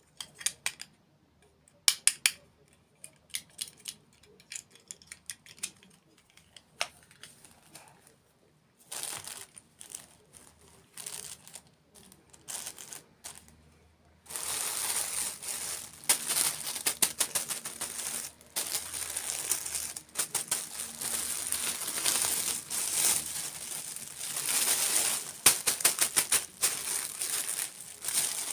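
Close-miked crinkling and crackling from dessert mukbang handling and eating. Sparse sharp clicks and short crackles come first, then from about halfway a dense, continuous crinkling.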